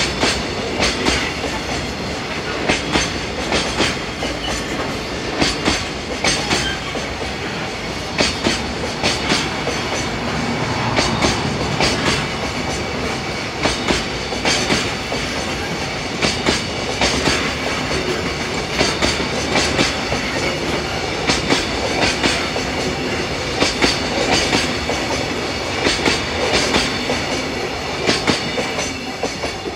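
Container flatcars of a JR Freight train rolling past, the wheels clattering over rail joints in repeated clusters of clicks over a steady rumble. The sound begins to fade near the end.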